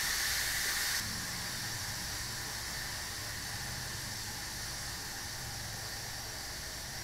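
Electric pressure cooker's main steam valve hissing as the cooking pressure is released, starting to slow down as the pressure falls. The hiss drops a step about a second in, then tapers off slowly.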